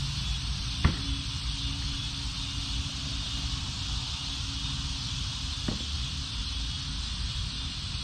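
Steady high hiss of insects over a low rumble of wind on the microphone, with two sharp snaps, one about a second in and another near six seconds.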